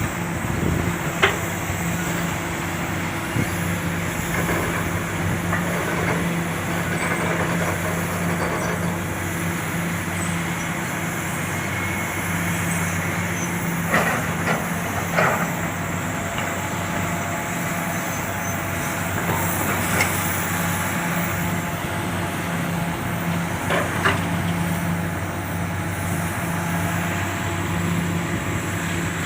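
Komatsu PC400 hydraulic excavator's diesel engine running steadily under load. A few short sharp knocks stand out, about a second in and several more in the second half.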